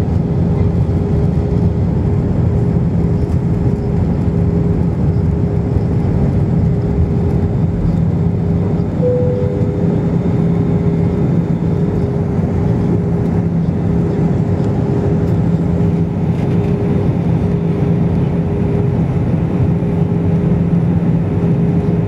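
Steady cabin noise of an Airbus airliner in flight, heard from inside at a window seat over the wing: constant engine drone and airflow rush, with a low steady hum and a higher steady tone running through it.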